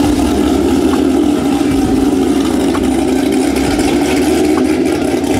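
Chevrolet V8 sports cars, a Camaro and then a Corvette, idling past at walking pace: a steady, deep, even exhaust drone with no revving.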